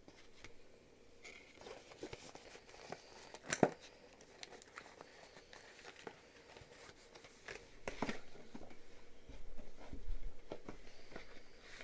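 Paper rustling and crinkling as an instruction booklet and sheet of labels are handled, with scattered light clicks and two sharper taps.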